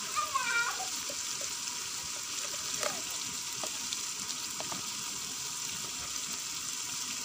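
Onion, tomato and spice masala frying in hot ghee in an aluminium pot: a steady sizzle, with a few faint clicks.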